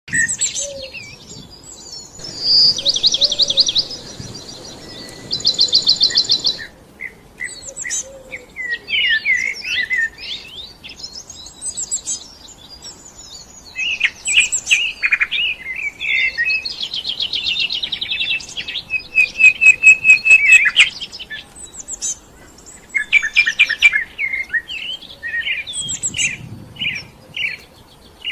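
Songbirds singing: a mix of varied chirps, whistles and fast rattling trills from several birds.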